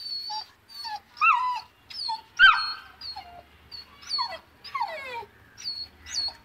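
Two-month-old Saint Bernard puppy whining and crying in distress, afraid to go down the stairs: a steady string of short, high-pitched whines, many sliding down in pitch, with a louder yelp a little past two seconds in.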